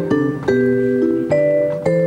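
Live jazz on vibraphone and double bass: vibraphone chords struck every half second or so and left ringing over a low bass line.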